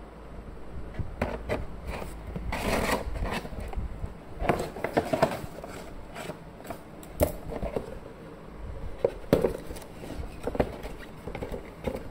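Scissors cutting the packing tape on a cardboard box, with the cardboard scraping and knocking as the box is handled: an irregular run of snips, scrapes and light knocks.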